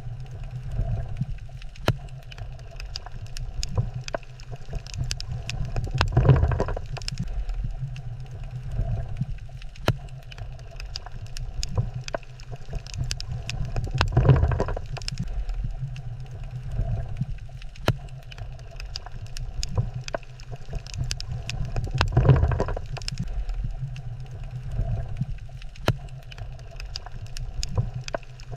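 Coral reef underwater ambience: a dense scatter of sharp crackling clicks over a steady low rumble, with a louder rush of water swelling and fading about every eight seconds.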